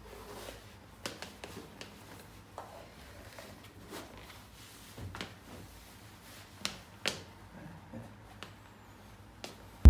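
Black leather slip-on dress shoes being put on and set down on a tiled floor: irregular light clicks and taps of the soles and heels on the tile, with two sharper taps about seven seconds in.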